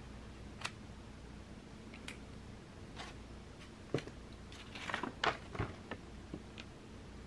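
Faint, sparse ticks of a pencil point pressing dart marks through a paper pattern onto faux shearling fabric, then a brief rustle and clicks of the paper pattern being lifted off about five seconds in.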